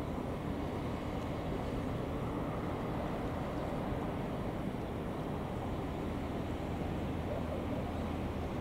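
Steady low drone of a shrimp cutter's diesel engine under way, with an even hiss above it.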